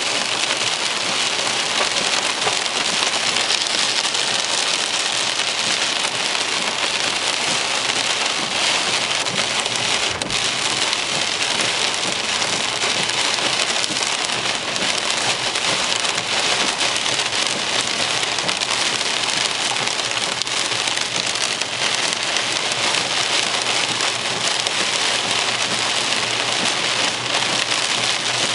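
Heavy downpour hammering on a car's windscreen and roof, heard from inside the moving car as a dense, steady hiss, so heavy that the wipers cannot keep the glass clear.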